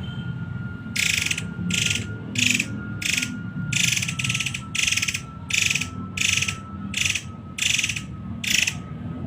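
Murai air bird calling in a rapid series of short, harsh, rasping notes, about eleven of them, one every half-second to second. A faint steady high tone runs underneath.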